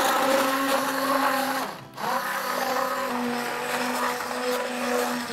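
Handheld immersion blender motor running in a pot of thick haleem, cutting out briefly about two seconds in and starting again.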